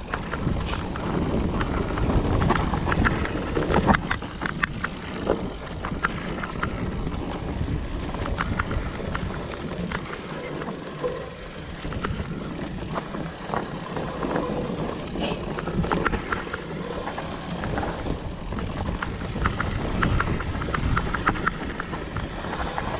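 Specialized Turbo Levo electric mountain bike ridden down a dirt singletrack: a continuous rough rumble of tyres over the trail, broken by many sharp clicks, knocks and rattles as the bike goes over roots and bumps.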